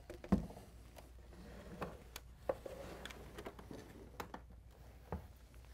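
Handling noise from a flat-screen TV being set down and laid flat on a cardboard carton: a dull thump about a third of a second in, then scattered soft knocks and rustles, and another low thump near the end.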